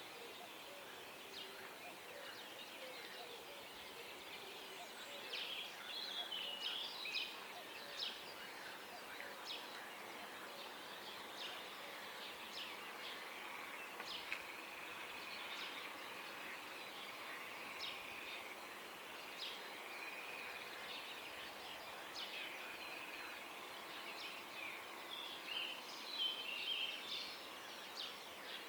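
Early-morning birdsong: many small birds chirping and singing at once over a steady background hush, busiest about five to eight seconds in and again near the end.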